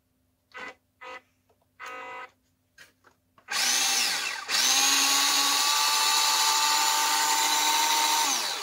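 A WPL D12 RC truck's electric motor and gearbox, with the truck held off the ground, give a few short throttle blips, then whine loudly and steadily with the wheels spinning freely at speed. The whine dips briefly once, comes back, and stops near the end.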